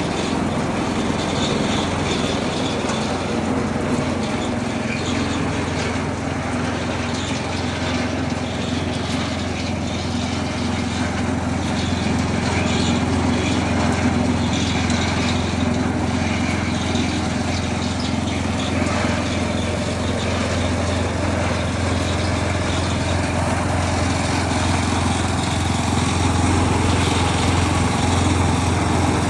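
Small engine running steadily with a low hum, powering a gold trommel wash plant as gravel and broken-up ice tumble through the turning drum.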